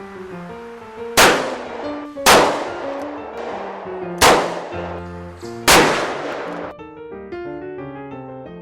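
Four loud gunshots, each with a long ringing echo, over ragtime piano music. The music carries on alone for the last couple of seconds.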